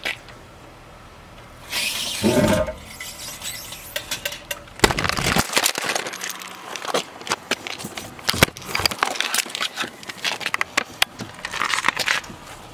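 Scraping and rubbing, then a long run of irregular metallic clicks and knocks from hand work with a jack and lug wrench at the wheel of a lifted Jeep, mixed with camera handling noise.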